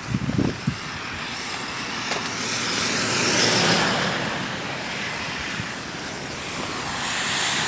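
Traffic on a wet street: a steady hiss of tyres on wet pavement that swells a few seconds in, eases, and builds again near the end.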